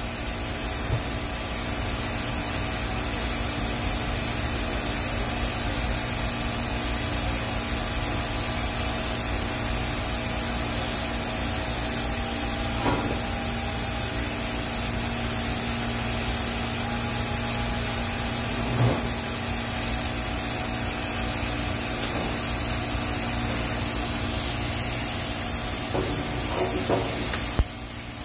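TIG welding arc on a stainless steel pipe root pass, a steady hiss with a faint hum underneath. The hiss cuts off abruptly near the end as the arc is broken.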